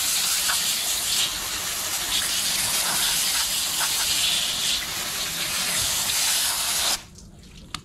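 Garden hose spray nozzle hissing as a jet of water washes the slime coat off a flounder on a cutting board. The spray cuts off suddenly about seven seconds in.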